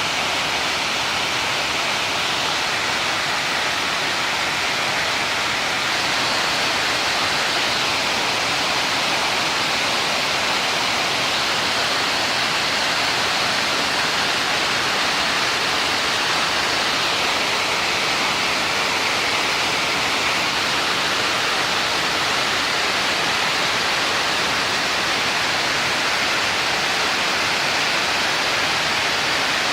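Steady rush of falling water from a waterfall, becoming slightly louder about six seconds in.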